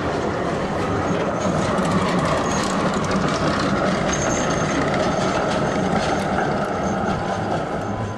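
Tram motor car and four-axle Credé trailer passing on street track: a steady rumble of wheels on the rails, with brief high wheel squeals about two and four seconds in.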